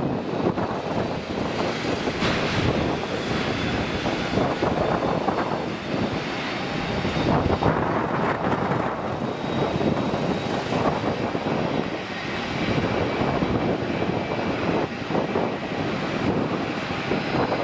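Twin jet engines of a Gulfstream-type business jet during its landing rollout on the runway: a steady rushing noise with a faint high whine.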